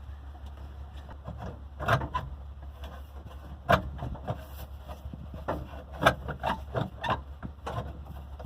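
Scattered knocks, clicks and rubbing from hands and tools working in a cramped space under an old truck's dashboard, with sharper knocks nearly four and six seconds in.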